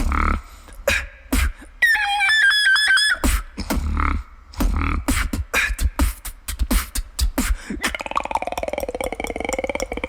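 Beatboxing: a rapid run of mouth clicks and drum-like hits, a high warbling whistle-like tone about two seconds in, and near the end a fast buzzing rattle of the voice whose pitch slides down and back up.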